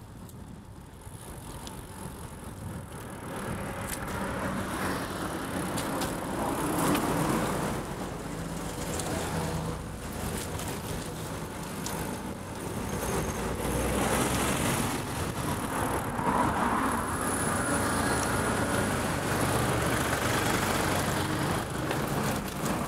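Road traffic: motor vehicles running past on a busy road, with tyre noise and a low engine hum. It builds up over the first few seconds and stays loud after that.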